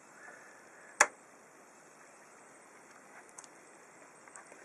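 A single sharp click about a second in, then a few faint ticks over low room hiss.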